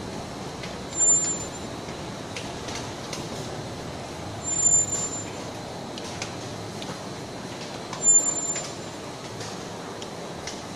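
Rock wool sandwich panel production line running with a steady machine noise. Three times, about three and a half seconds apart, a short, loud, high-pitched hiss cuts through it.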